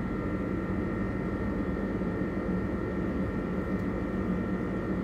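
A steady machine drone: an even noise with a low hum and two thin higher steady tones, unchanging throughout.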